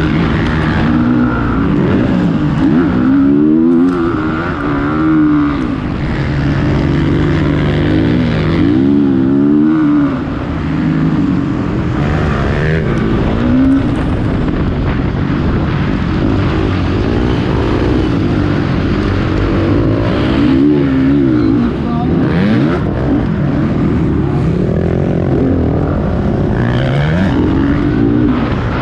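Several motocross bikes racing, their engines revving up and down over and over as the riders accelerate and shift, with several engines overlapping.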